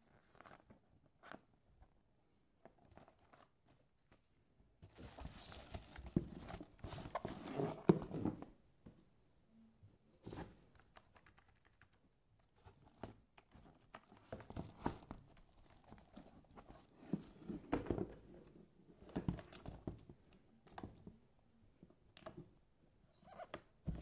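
Clear plastic packaging bag crinkling and rustling in several bouts, with light knocks and clicks as a keyboard and its cardboard box are handled during unpacking.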